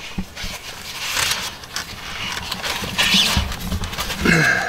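A person breathing hard while working with arms overhead, with a short voiced grunt near the end.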